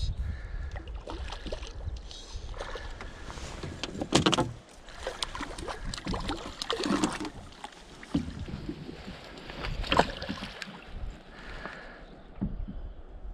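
Water splashing and sloshing, with a few louder strokes about three seconds apart, over a low wind rumble on the microphone.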